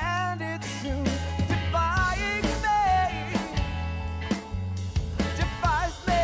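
Background rock music with drums, bass and a gliding melody line.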